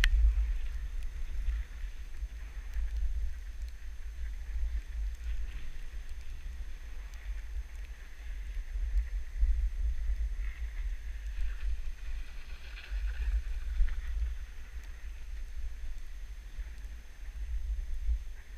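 Wind buffeting an action camera's microphone as the skier carrying it glides downhill: an uneven low rumble that swells and dips throughout.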